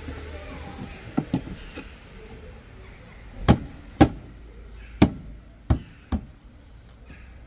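Opel Astra H rear tail-light unit being knocked into place on the car body: a series of about seven sharp plastic knocks and clicks, the loudest two about three and a half and four seconds in.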